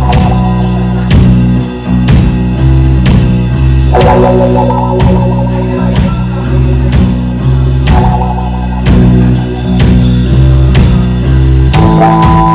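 A live rock band plays an instrumental over a steady drum-kit beat and sustained low notes. Electric guitar phrases come in about four seconds in and again around eight seconds, and a ringing guitar chord is held near the end.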